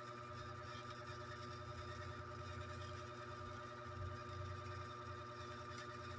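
A steady low hum with a thin high tone running above it, and a soft bump about four seconds in.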